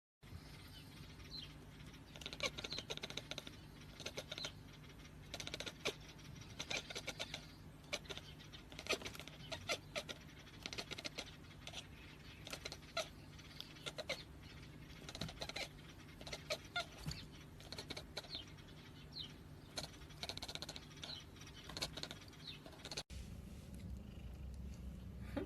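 Kittens making small high mews among frequent light clicks and rustles, faint, over a steady low hum.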